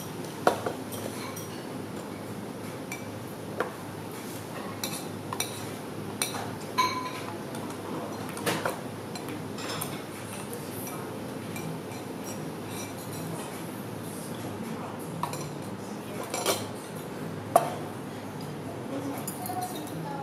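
Ceramic soup spoon and metal chopsticks clinking against a ceramic soup bowl while eating: about ten sharp, irregularly spaced clinks over a steady background hum.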